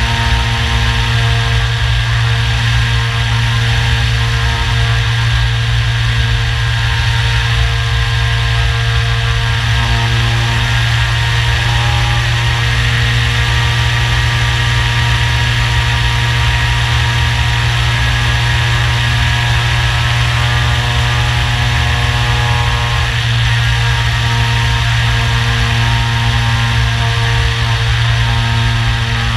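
Radian Pro glider's brushless electric motor and propeller running in flight, heard from the onboard camera as a steady drone with air rushing over the microphone. The motor's note drops back about ten seconds in and comes up again past twenty seconds.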